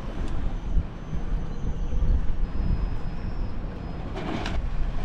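A low, steady engine rumble at idle, with a brief hiss about four seconds in.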